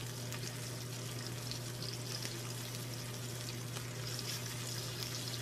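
T-bone steak sizzling in hot fat in a frying pan, a dense, steady crackle. A low steady hum runs underneath.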